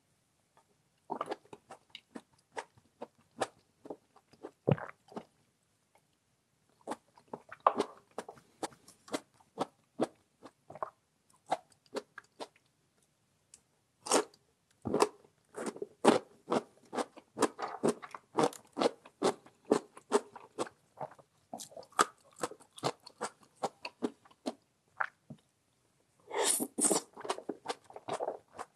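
Close-miked eating sounds: crisp crunching and wet chewing in runs of quick clicks, with short pauses between mouthfuls, typical of biting into crunchy radish kimchi and pickled radish.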